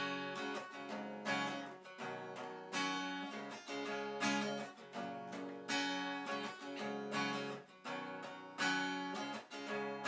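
Acoustic guitar intro: chords strummed in a steady rhythm, each stroke ringing on.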